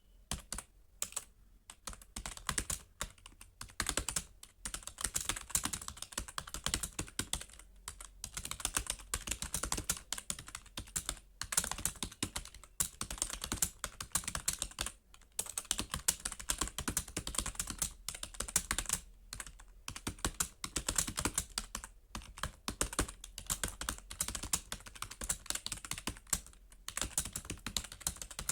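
Fast, continuous typing on a computer keyboard, dense key clicks with a few brief pauses.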